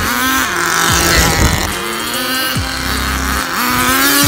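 Small two-stroke nitro glow engine of an HSP 94155 1/10-scale RC short-course truck revving up and easing off several times as it is driven, a high buzzing whine that climbs and drops in pitch.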